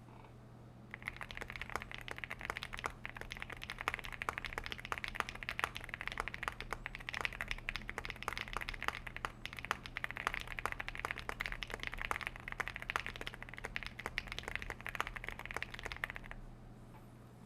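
Fast continuous typing on a Rainy75 Pro mechanical keyboard with Akko Rosewood switches, an FR4 plate and PBT keycaps: a dense run of key clacks that starts about a second in and stops shortly before the end.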